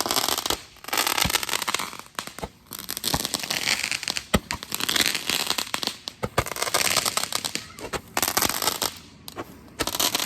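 Consumer firework going off: dense crackling and hissing with sharp pops, in several spurts with short pauses between them.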